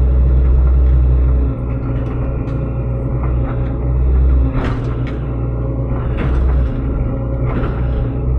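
SANY SY75C mini excavator's diesel engine running and pulling harder in surges under hydraulic load while the machine digs out a bamboo clump, with several sharp cracks and knocks.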